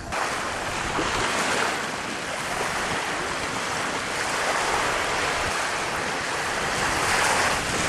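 Steady rush of wind and choppy waves on open water, with no engine or voice over it.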